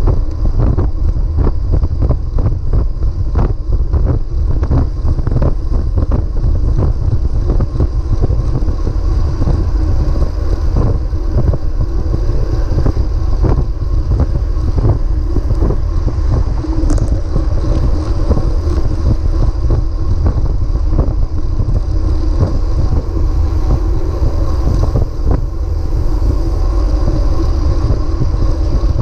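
Heavy wind noise on the microphone of a bike-mounted action camera while riding at speed, with a steady rumble of road-bike tyres on asphalt. Many small knocks come through in the first several seconds.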